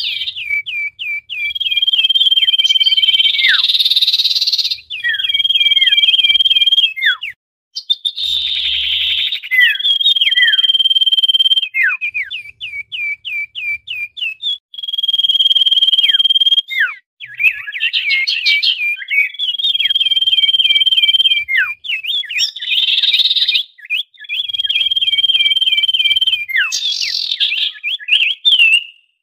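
Common iora (cipoh) calling busily. Long, steady, high whistles of about a second and a half come back every few seconds, each cycle with rapid runs of short down-slurred notes and harsh buzzy bursts. This is the noisy calling used as a lure to bring wild ioras down.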